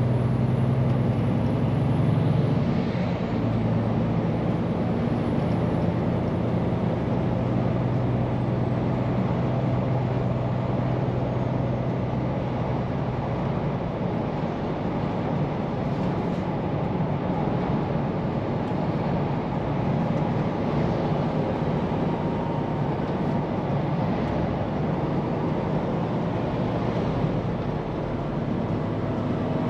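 Scania P410 truck's diesel engine running steadily on the move, with tyre and road noise.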